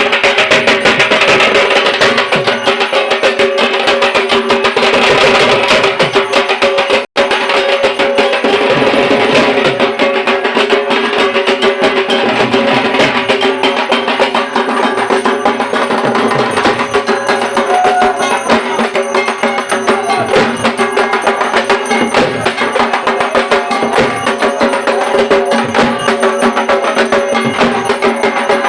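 Dhak, the Bengali double-headed barrel drum, beaten in a fast continuous stick rhythm for Durga Puja, with steady ringing tones underneath. The sound cuts out for an instant about seven seconds in.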